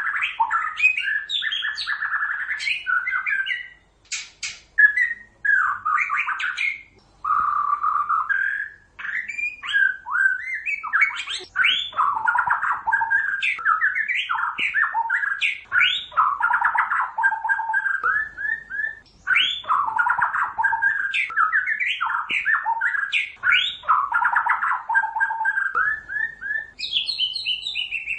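White-rumped shama singing a long, varied song of rapid whistled and chattering phrases, with a few short pauses.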